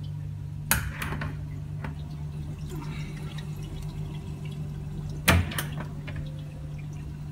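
Reef aquarium sump running: water trickling and dripping over a steady low hum from the pumps. Two sharp knocks from handling the cabinet, about a second in and again past five seconds.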